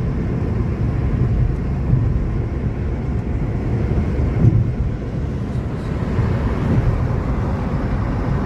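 Road and engine noise of a moving car heard from inside the cabin: a steady low rumble.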